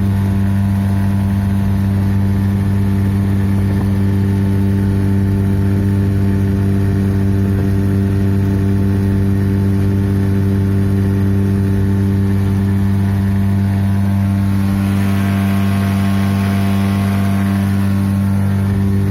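Boat motor running at a steady speed, holding one even pitch throughout. A rushing hiss swells briefly near the end.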